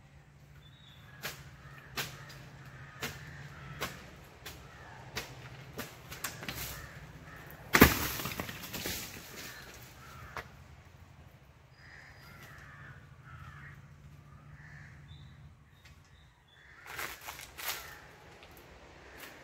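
Coconut harvesting at the top of a palm: a series of sharp chops, about one a second, as the climber cuts the coconuts loose. A loud crash comes about eight seconds in, and a short cluster of chops near the end.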